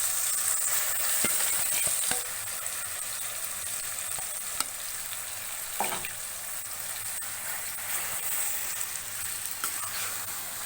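Marinated prawns sizzling in hot oil in a kadai, a steady hiss that eases a little about two seconds in, with a few light knocks.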